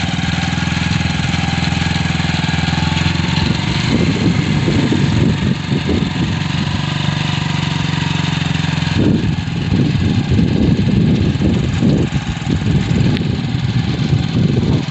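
Motorcycle engine running steadily under load as it tows a tractor on a rope. Irregular low rumbling bursts come in about four seconds in and again from about nine seconds.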